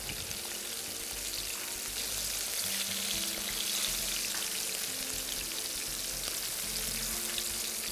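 Flour-and-spice-coated fish pieces shallow-frying in oil, giving a steady sizzle.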